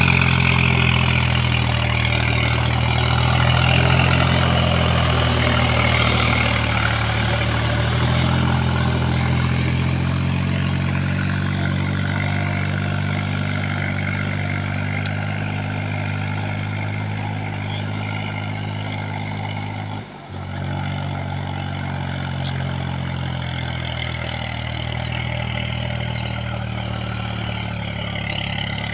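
Swaraj 735 FE tractor's three-cylinder diesel engine running steadily under load while it pulls an implement through a flooded paddy field. The engine grows somewhat fainter as the tractor pulls away, and the sound drops out briefly about two-thirds of the way through.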